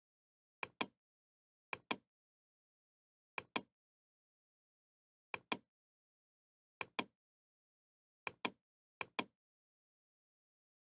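Computer mouse clicking: seven quick press-and-release click pairs, irregularly spaced, with dead silence between.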